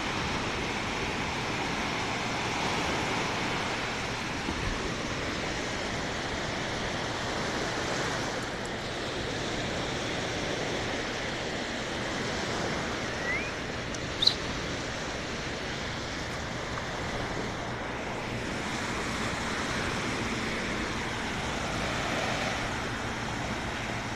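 Small Lake Michigan waves washing and breaking on a sandy shore: a steady rushing that swells and eases. A brief high chirp sounds about two-thirds of the way through.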